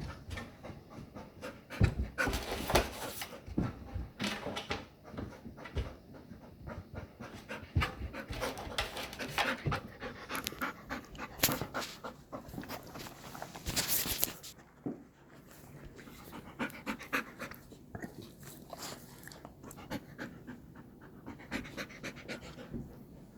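Golden retriever panting hard and fast from the exertion of play, with scattered thumps and scuffling mixed in; the panting and thumps are heaviest in the first half and ease off after about fifteen seconds.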